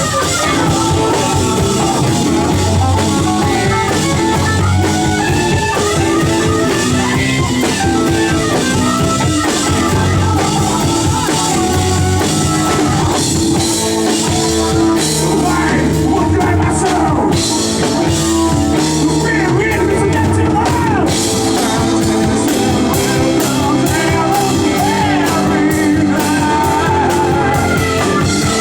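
Live rock band playing a song at full volume, with drum kit and guitars and some bending melodic lines.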